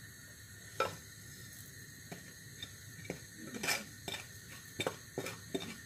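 Irregular light taps and clinks of a clay plate and a wooden spoon knocking against an earthenware cooking pot as ground spices are tipped in.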